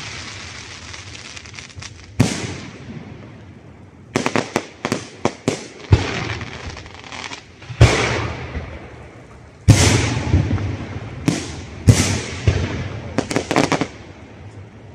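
Aerial firework shells bursting with sharp bangs, each trailing off in a long rolling echo. A quick run of cracks comes about four to five seconds in, heavier booms follow, and a flurry of crackling reports comes near the end.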